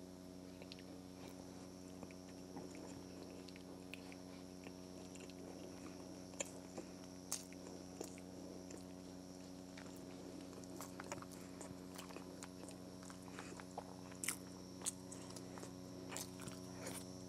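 Close-miked chewing of a falafel, with scattered short soft clicks and a few sharper ones near the end as a plastic fork works in the salad bowl, over a faint steady hum.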